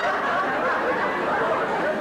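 Live theatre audience laughing steadily, many voices together.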